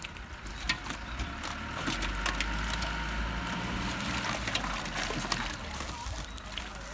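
Men hauling a wet fishing net and its catch into a narrow boat, with scattered knocks and rustles of net and fish against the hull.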